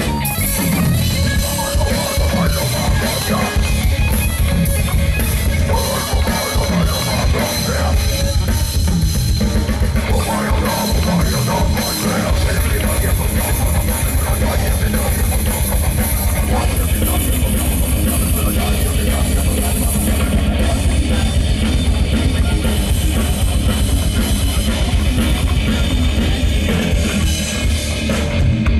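Live death metal band playing loud: distorted electric guitar, bass guitar and drum kit, with rapid bass drum strokes for most of the passage.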